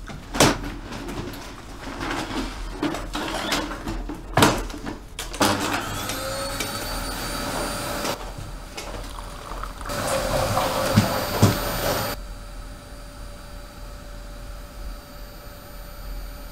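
Vacuum cleaner with a hose and wand switched on about five seconds in, its motor spinning up to a steady whine and then running on. There are a few knocks before it starts, and two more about eleven seconds in.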